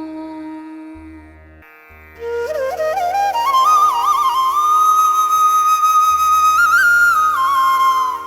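Music: a solo flute in Carnatic style over a steady drone. After a fading held note at the start, the flute enters about two seconds in, climbs with quick ornamented turns and holds a long high note.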